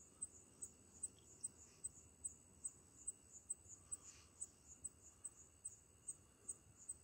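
Faint, steady chirping of crickets at night, a high short chirp repeated two to three times a second.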